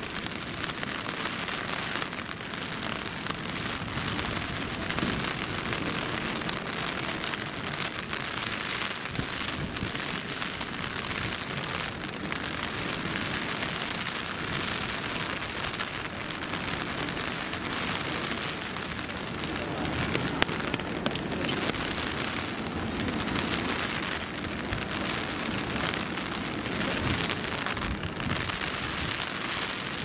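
Steady, continuous rain falling and splashing on surfaces, with a few sharp taps around twenty seconds in.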